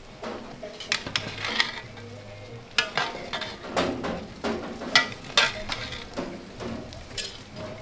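A long metal spoon stirring and scraping rice and peas in a large aluminium pot, with irregular scrapes and knocks of metal on metal, the loudest about five seconds in.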